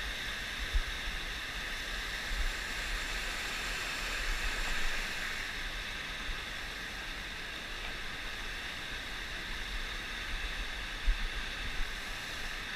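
Waterfall rushing steadily, an even roar of falling water, with a few brief low bumps on the microphone.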